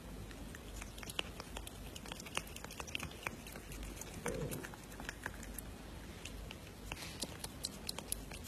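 Kitten licking from a spoon: faint, irregular small clicks and smacks of its tongue and mouth, over a low steady hum.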